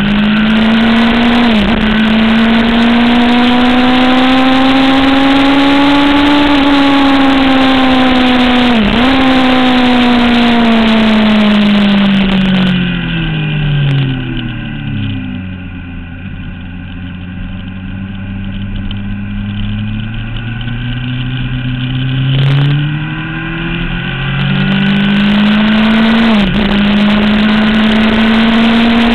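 Sport motorcycle engine at high revs. It climbs through the gears with sharp upshifts twice early on, then the revs fall away as it slows for a corner and run low for several seconds. It then pulls up again, with another upshift near the end.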